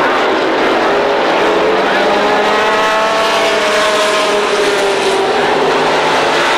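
Super late model stock car V8 engines racing at full throttle in a steady, loud blare of several cars. About two to five seconds in, one car's engine note rises and then falls as it passes close by.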